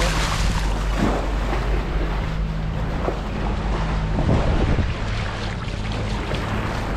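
Sailboat running under sail and engine: the engine drones steadily beneath the rush of water along the hull at the bow and wind on the microphone, with a few brief louder rushes of water.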